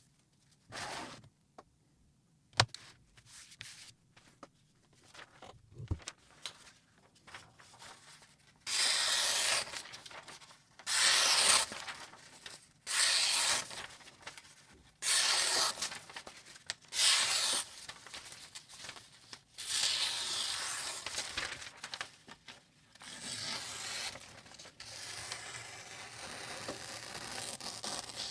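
Knife blade being stroked along a Hapstone 4000 fine semi-natural quartz sharpening stone in a guided sharpener. It starts as a few light clicks, then becomes a series of separate hissy scraping strokes of about a second each, and near the end turns into a longer stretch of continuous scraping.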